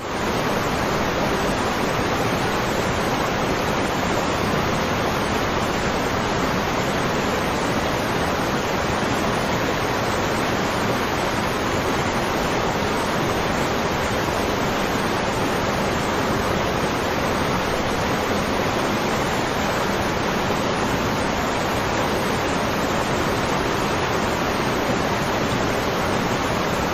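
Waterfall: a steady, unbroken rush of falling water that starts abruptly.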